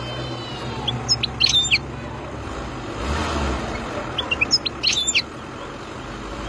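European goldfinch singing two short bursts of quick, high twittering notes, one about a second in and another about four seconds in, over a steady background hiss.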